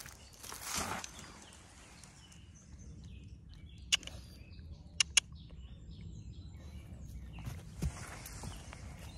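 Rustling from a dog nosing about an upturned terracotta flowerpot, with three sharp clicks a little after the middle, two of them close together, and a low thump near the end.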